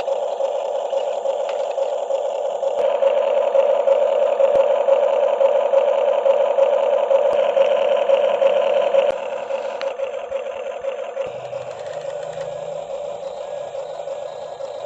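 Small electric motors of a radio-controlled toy excavator and dump truck whirring steadily, working harder for several seconds before easing off about nine seconds in.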